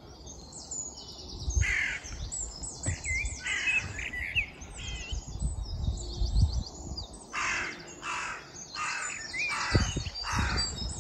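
Dawn chorus of several songbirds singing and twittering, with a run of harsh, noisy calls about two-thirds of the way through. Dull low thumps sit under it.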